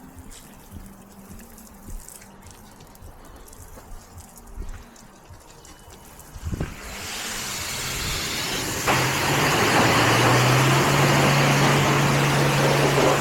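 Car wash machinery working on a car: a low rumble with a few knocks, then water spray rising about seven seconds in. About nine seconds in, a loud rush with a steady machine hum switches on.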